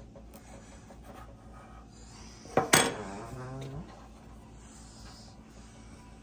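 A kitchen knife cuts through pastry dough and strikes the wooden board with a sharp double clack about two and a half seconds in, followed by a brief low hum lasting about a second.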